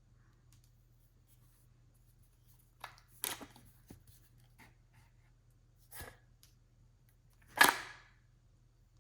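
Handling noise from unboxing a revolver shotgun: a few light clicks and rustles, a single click a little later, and a sharper, louder clack about three-quarters of the way through.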